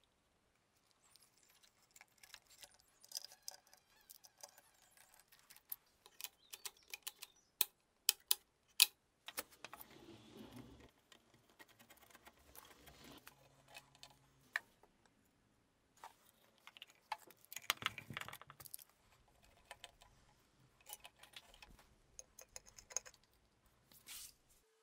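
Scattered clicks, ticks and light metal clatter of parts and hand tools being handled and fitted during reassembly, with a couple of short scraping, rustling passages.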